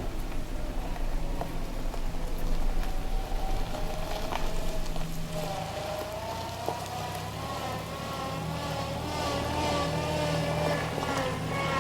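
Suzuki Jimny JB64's 660 cc turbocharged three-cylinder engine running as the car drives, its pitch climbing slowly through the second half as it gathers revs, over a steady low rumble with a few scattered ticks.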